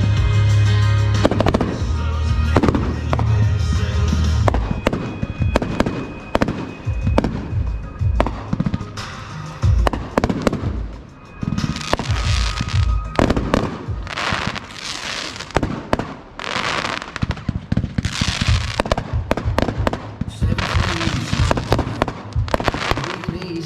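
Fireworks going off in a hand-fired finale: a dense string of sharp bangs, and from about halfway on longer hissing bursts between the reports, over background music.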